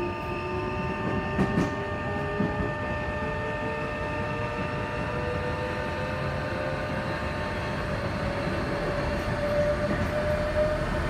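Tokyo Metro 03 series subway car under chopper control accelerating. The traction motor whine climbs steadily in pitch over steady high chopper tones, the sound known as the 'violin chopper', with wheel and rail rumble and a few sharp rail-joint clacks about one and a half and two seconds in.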